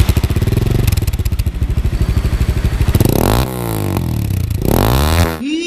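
Gamma 200 motorcycle breathing through a Villain aftermarket exhaust with a carbon tip and its dB killer fitted: it idles with an even firing beat, then is revved twice, the pitch rising and falling each time. The audio cuts to music just before the end.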